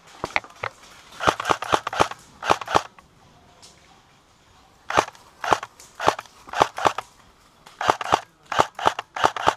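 Airsoft rifle firing strings of rapid, sharp shots in three volleys, with a pause of about two seconds after the first volley.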